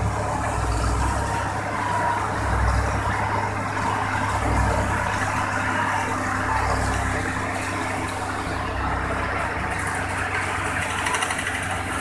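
Laverda combine harvester running steadily under load, its engine and threshing machinery giving a continuous hum as it threshes wheat and throws the straw out the back.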